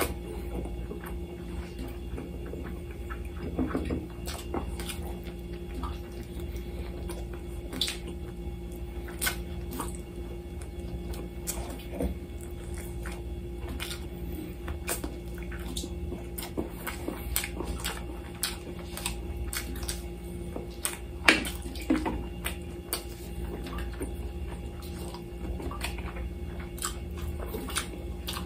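Close-up eating sounds: wet chewing and lip-smacking clicks as grilled lamb chops are bitten and chewed off the bone by hand, with one sharper click about two-thirds of the way through. A steady low hum runs underneath.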